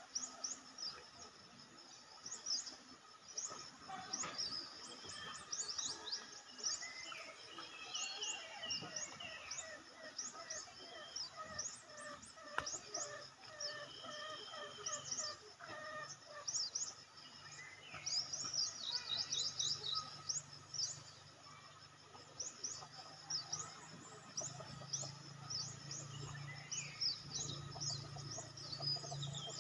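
Forest birds chirping, a dense run of short, high, falling chirps with some lower calls among them. A low steady hum joins in about halfway through.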